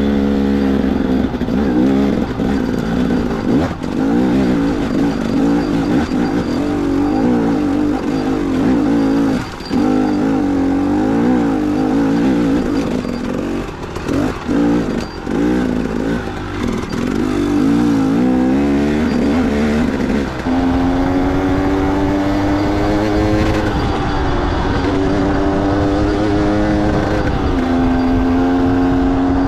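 Enduro dirt bike engine revving up and down repeatedly as it is ridden over trail, then running at a steadier, higher pitch for the last third, with brief dips near the end.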